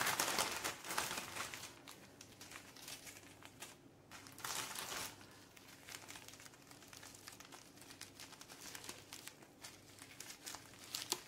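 Small zip-lock plastic bags of resin diamond painting drills crinkling as they are handled, loudest in the first second and again about four and a half seconds in.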